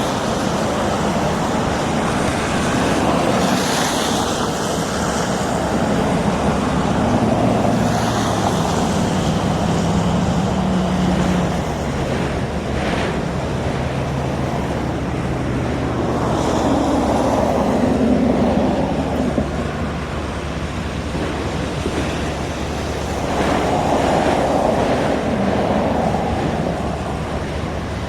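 Steady vehicle rumble outdoors, with a low engine drone and wind on the microphone, swelling and easing a few times.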